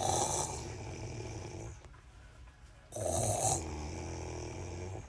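A man snoring loudly: two long snores about three seconds apart, each starting harsh and trailing off into a low rumble.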